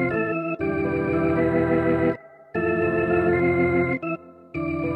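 VB3 virtual Hammond B3 organ on its Gospel Set preset playing back sustained chords from a MIDI track, with short breaks between chords about two and four seconds in.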